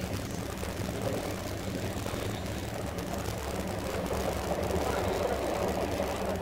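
Cabin noise inside a KTX high-speed train car under way: a steady low rumble and hum of the running gear and track, growing a little louder past the middle.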